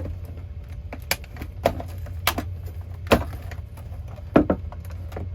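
Plastic alarm clock radio casing being pried apart: a handful of sharp, separate cracks and snaps at uneven intervals as pieces break loose.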